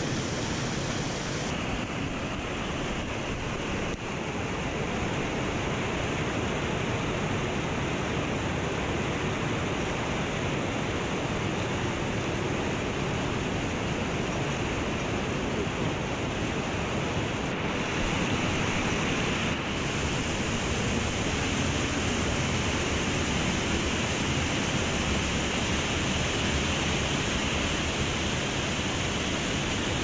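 Steady loud rush of water from a mountain stream, an even hiss with no breaks, its brightness shifting slightly about a second and a half in and again a little past halfway.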